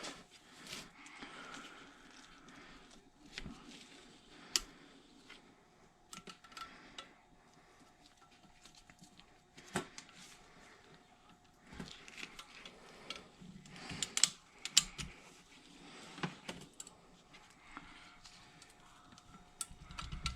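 Irregular small metallic clicks and taps from valve-spring work on a Honda K20 cylinder head: a spring tool, retainers and keepers being handled, with a few sharper clicks now and then.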